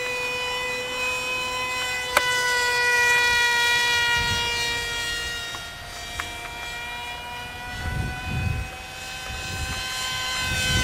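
Motor of a Mini Horten RC flying-wing model plane, heard in flight as a steady high-pitched whine; its pitch sags slightly, then rises near the end as the plane comes back in. Wind buffets the microphone about four and eight seconds in.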